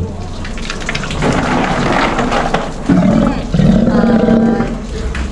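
Steller sea lion giving two low calls at a steady pitch, about three and four seconds in, the second one longer.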